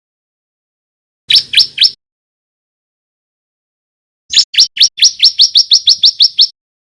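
Male bar-winged prinia (ciblek) singing loudly. About a second in comes a quick group of three sharp rising notes; after a pause comes a fast, even run of about a dozen rising notes, some six a second.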